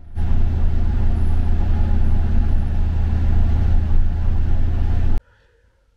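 Temsa intercity bus cruising on a highway, heard from the front of the cabin: a loud, steady low engine hum with road noise. It cuts off suddenly near the end.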